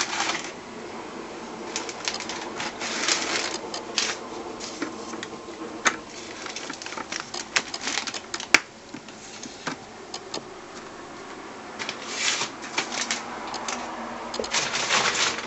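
Irregular clicks, taps and rustles of a motorcycle helmet and its plastic trims being handled, coming in scattered clusters, with one sharp click a little past halfway.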